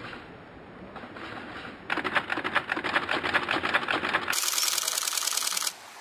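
Camera shutter firing in a fast continuous burst, an even run of sharp clicks at about ten a second, starting about two seconds in and stopping suddenly near the end.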